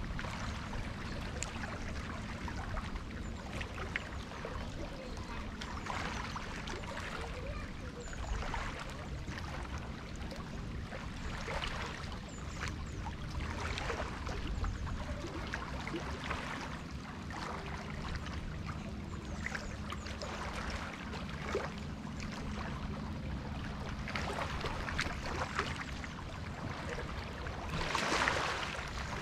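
Rain and water lapping at a jetty: a steady wash of water with many small splashes, and one louder splash near the end.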